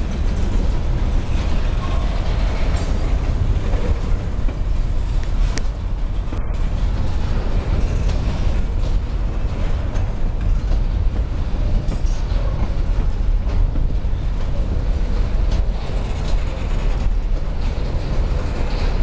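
Empty freight hopper wagons rolling past at close range: a steady low rumble of steel wheels on rail, with scattered knocks and clicks from the wheels and couplings.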